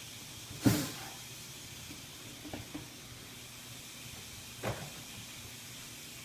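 Long metal tongs and a plastic tub being handled: a sharp knock under a second in, a few light clicks, and a second, softer knock near the end, over a faint steady hiss.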